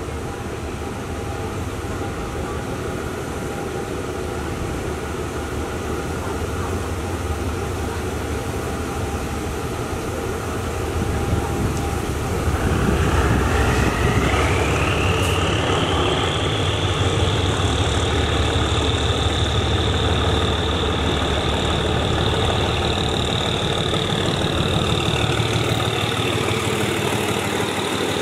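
GE diesel-electric locomotive No. 4005 running past on the adjacent track. Its engine grows louder as it draws alongside, and a high whine rises in pitch a little under halfway in, then holds steady.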